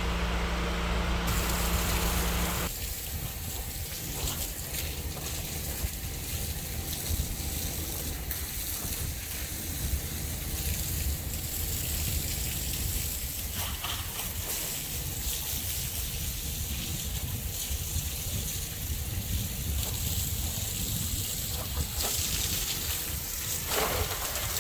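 Water spraying from a cleaning hose onto a surface, a steady hiss and splash. A low machine hum runs under it for the first couple of seconds, then stops.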